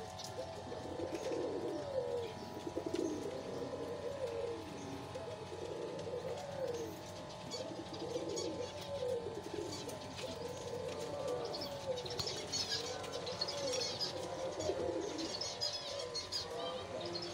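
Fantail pigeons cooing in a continuous string of rising-and-falling coos, about one a second, several birds overlapping. Higher chirps join in over the second half.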